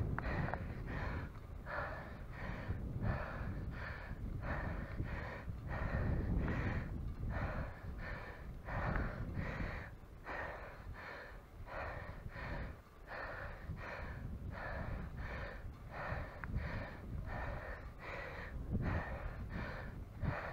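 A cyclist's heavy, rhythmic panting, about two breaths a second, as he labours on the bike, over a steady low rumble.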